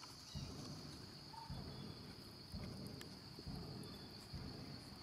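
Steady high-pitched drone of insects, with faint low rumbles coming and going about once a second.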